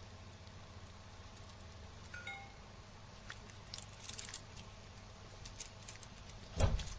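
Handling noise from a mobile phone watch held in the fingers: scattered small clicks and taps over a low steady hum. A short electronic beep sounds about two seconds in, and a louder thump comes near the end.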